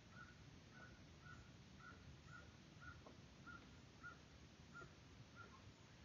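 A bird calling faintly: short, evenly repeated notes at one steady pitch, about two a second.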